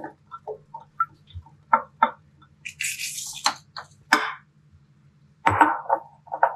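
Peeled snake fruit pieces tipped from a ceramic bowl into a stone-coated cooking pot: a run of soft knocks and clinks as the pieces drop in and the bowl taps the pot, with a brief hiss about three seconds in.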